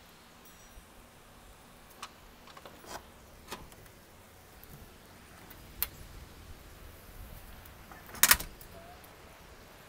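A door being handled: scattered light clicks and knocks, then a loud, sharp double bang near the end.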